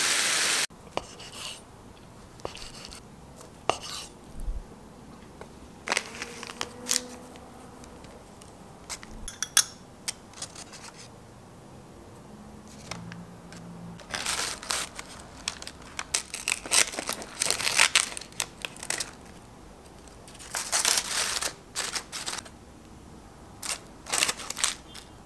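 A frying pan's sizzle cuts off in the first second. After that come quiet food-assembly handling sounds: crinkling and tearing of paper and packaging in short bursts, and light clicks of a spoon and chopsticks.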